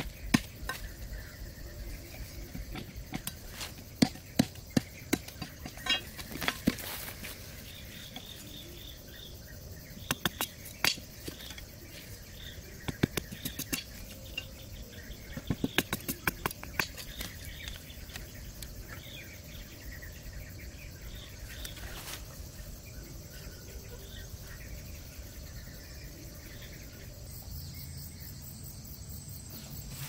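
Large knife cutting and tapping bamboo sticks: a series of sharp clicks and knocks, bunched in quick clusters in the middle, over insects chirping steadily in the background.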